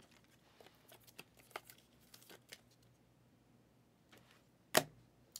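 Plastic trading-card sleeves and a clear card holder being handled: faint crinkling and small taps, then one sharp plastic click near the end.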